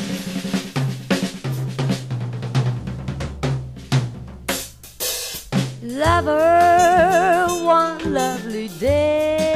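Jazz combo instrumental: drum kit with snare, rimshots and cymbals over a walking bass line. About six seconds in, a long wavering melody note comes in over the rhythm section.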